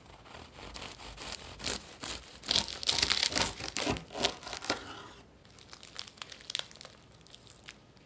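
Dry crinkling and crackling, densest from about two and a half to five seconds in, then thinning out to scattered light clicks.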